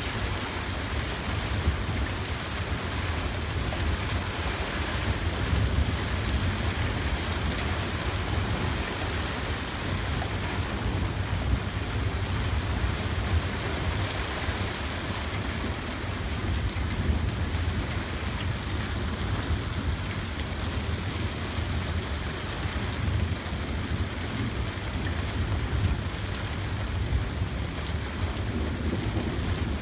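Heavy thunderstorm rain falling steadily, with a constant low rumble underneath.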